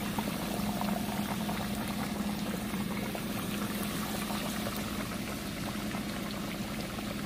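Breaded whiting fillets deep-frying in hot oil in a stainless steel pot: a steady bubbling sizzle full of fine crackles. The fish is early in its cooking, the oil still cloudy with bubbles and the fillets not yet floating.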